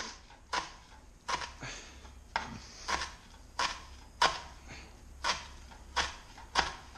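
Chef's knife chopping fresh herbs on a cutting board: a steady run of sharp knocks of the blade on the board, about one and a half a second.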